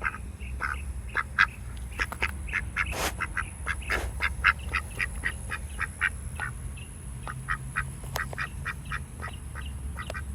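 Backyard ducks quacking: a long run of short quacks, several a second, louder and faster through the middle.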